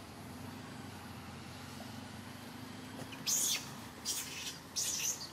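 Monkey screeching in short shrill bursts, three in about two seconds, starting about three seconds in, over a steady low hum.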